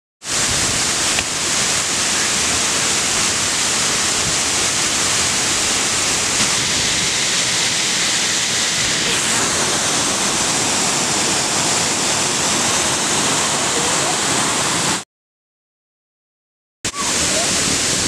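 Waterfall's steady rush of water falling onto rocks, loud and even. It breaks off for about two seconds near the end and then resumes.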